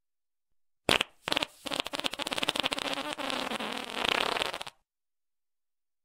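Fart sound effect: two short blasts about a second in, then a long fluttering fart of rapid pulses lasting about three seconds that cuts off abruptly.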